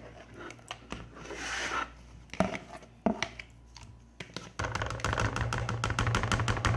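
Soaked tamarind pulp being pressed and scraped through a strainer: soft wet rubbing with a few clicks, then, from about two-thirds of the way in, a fast run of scratchy scraping strokes.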